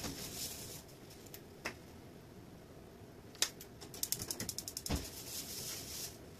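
Gas hob igniter clicking rapidly for about a second, then the burner catching with a low whump and the flame hissing steadily under the frying pan.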